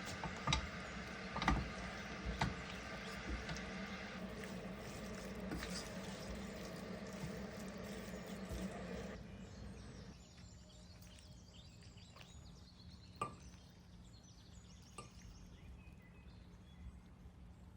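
Kitchen noise: a steady hum with a few sharp clinks, as of a utensil against cookware. About nine seconds in the hum drops away, leaving quieter room noise with an occasional click.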